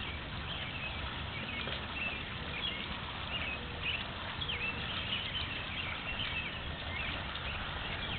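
Rainwater running across a yard in a steady rush, with short high chirps scattered over it.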